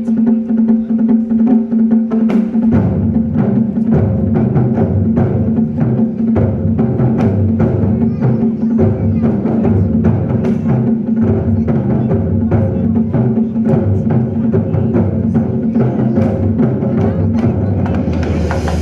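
Zen drumming ensemble playing live: a steady held tone at first, then a dense run of low drum beats from about three seconds in, with sharp stick clicks throughout.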